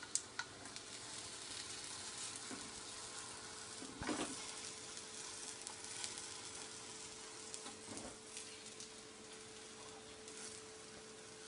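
Dahi kebabs shallow-frying in olive oil on a tawa: a quiet, steady sizzle with crackles. There are a few sharp clicks near the start and a louder short knock about four seconds in.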